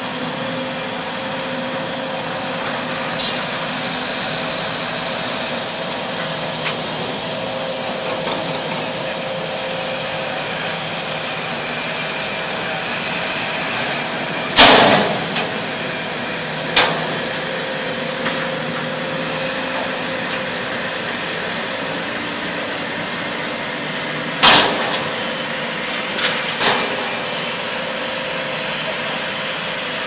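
Diesel engines of earthmoving machines (a vibratory soil roller, a dump truck and a bulldozer) running steadily. Two loud sharp bangs come about halfway through and again near the end, with a few lighter knocks after each.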